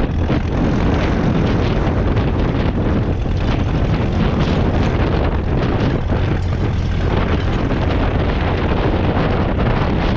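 Ferguson TED20 tractor's four-cylinder TVO engine running steadily, with heavy wind buffeting the microphone.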